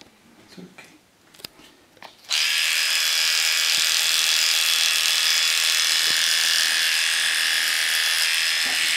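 Cordless electric dog clippers switch on about two seconds in, then run with a steady buzz as the blade shaves the short hair of a poodle's face and muzzle.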